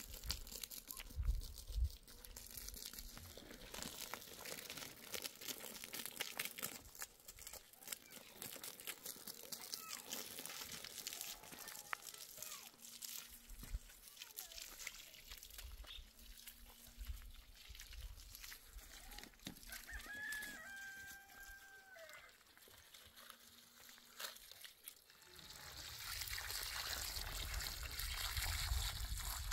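A rooster crows once, a little over two-thirds of the way through, with a few shorter chicken calls earlier and light rustling and clicks. In the last few seconds a steady rush of water starts, a garden hose running at the foot of a sapling.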